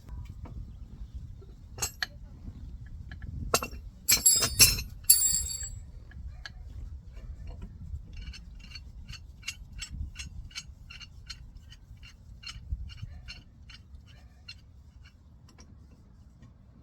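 Metal tools and parts clinking against a brake caliper as a C-clamp and old brake pad are set up to push the piston back, with several loud ringing clinks a few seconds in. This is followed by a run of light, even ticks, about two a second, that fades out near the end.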